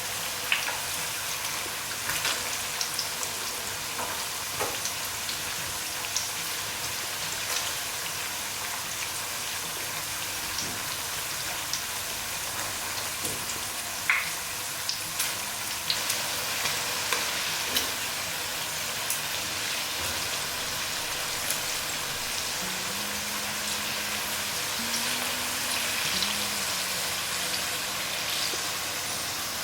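Sweet potato slices frying in hot oil: a steady sizzle with scattered pops and crackles.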